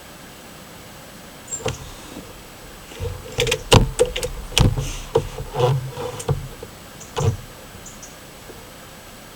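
Handling noise: a run of sharp clicks and knocks, some with dull low thuds, starting about one and a half seconds in and ending about two seconds before the end.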